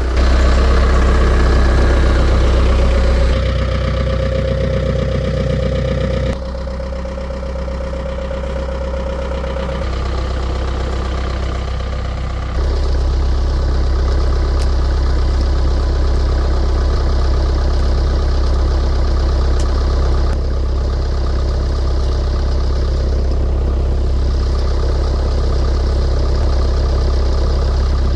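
Heavy-equipment diesel engines idling, in several joined stretches whose sound shifts abruptly about 3, 6, 10 and 12½ seconds in; the last half is one steady low idle.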